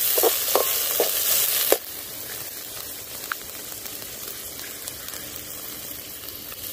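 Garlic cloves and curry leaves sizzling in hot sesame oil in an aluminium kadai, with a metal spoon clinking against the pan as they are stirred in the first two seconds. Just under two seconds in, the sizzle drops suddenly to a quieter steady hiss.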